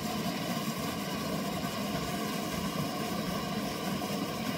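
Small river waterfall pouring steadily into a rock pool, a constant rushing of water.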